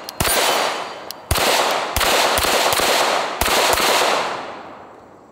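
A string of 9mm pistol shots from a Glock 19 fitted with a Radian Afterburner compensator, the last about three and a half seconds in, each shot trailing a long echo that dies away toward the end.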